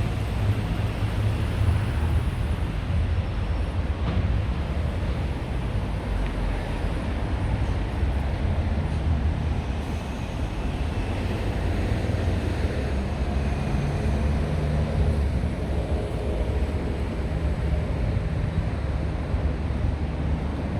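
Steady low vehicle rumble with road noise, even throughout and with no distinct events.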